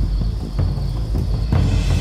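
Music led by deep drums, with several heavy drum strikes over a steady low rumble.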